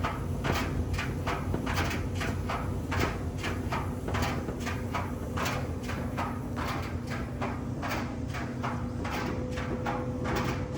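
GE dryer (model GFD65ESPN0SN) running with a rattling noise: rhythmic knocking about three times a second over a steady motor and drum hum.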